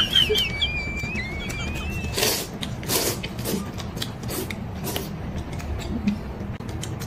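Noodles being slurped in a series of short slurps from about two seconds in. Before that there is a thin, high, wavering tone.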